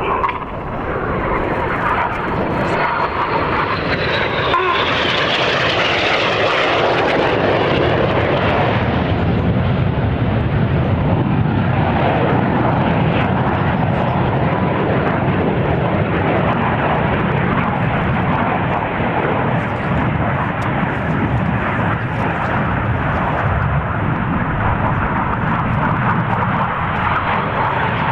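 Red Arrows BAE Hawk T1 jets flying past with a loud, steady rush of jet engine noise. A high whine falls in pitch a few seconds in as a jet passes.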